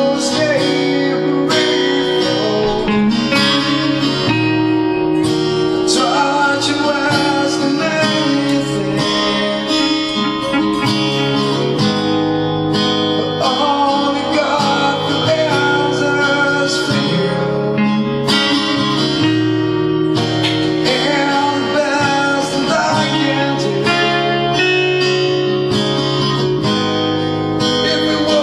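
Acoustic guitar strummed in a steady rhythm of chords, played live as a song, with a voice singing over it at times.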